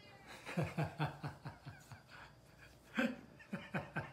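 A man chuckling quietly in two runs of short, quick laughs, each lasting about a second, the second starting louder.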